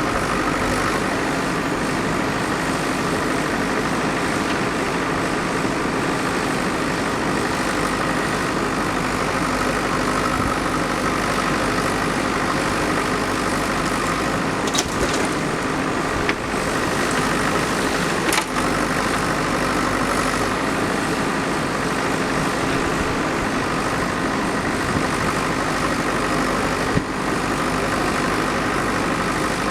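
Heavy diesel engine of a backhoe loader running steadily, with a few brief sharp knocks in the second half.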